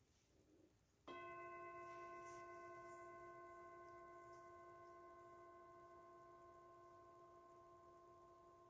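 A metal singing bowl struck once about a second in, ringing with a steady tone and several overtones that slowly fade.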